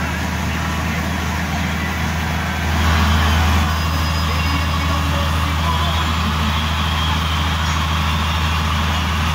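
Tour schooner's engine running steadily under way, a low drone that grows slightly louder for about a second roughly three seconds in.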